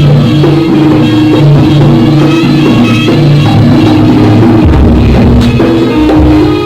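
Live jaranan music played loudly: drums with a melody of held notes over a steady bass line.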